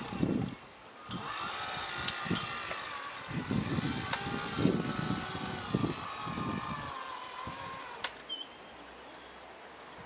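Electric drive motor and gearbox of a radio-controlled scale model truck whining steadily, the pitch sinking slightly before it stops about eight seconds in, with irregular low rumbling mid-way.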